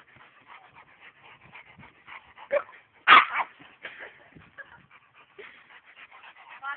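Two dogs play-fighting, with short yips, whimpers and barks among many small scattered noises; the loudest yelp or bark comes about three seconds in.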